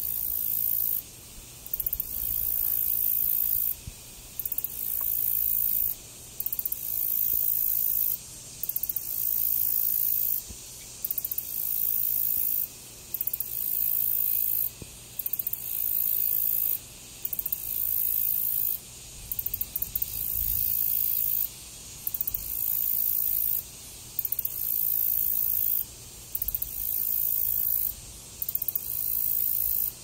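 High-pitched insect buzzing, repeating in runs of about two seconds, each broken by a short pause.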